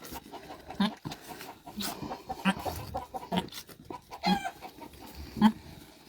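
Short, low animal calls repeated roughly once a second, each brief, with faint rustling and clicks between.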